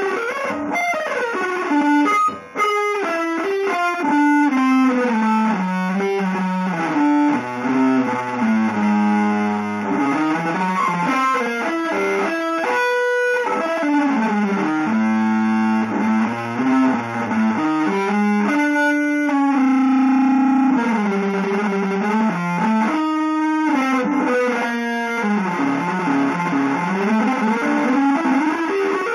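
Electric guitar played through effects with some distortion: a free-moving line of single notes climbing and falling, with several long held notes. A brief drop-out comes about two and a half seconds in.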